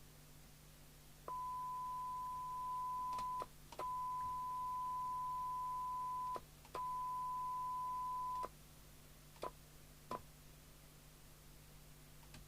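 A steady single-pitch test tone from a signal generator, heard through a CB radio's speaker, cutting in and out three times with a click each time as the squelch opens and closes while the squelch preset is set. Two lone squelch clicks follow.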